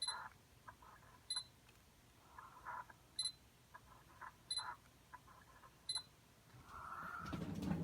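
Sony 85mm f/1.4 G Master lens refocusing again and again, its focus motor giving short rattling, clicking buzzes, each focus marked by the camera's short high focus-confirmation beep, every one to two seconds. It is the weird noise the owner says the lens still makes after firmware update 3.10, as if it were breaking. Near the end a louder, lower rustle swells up.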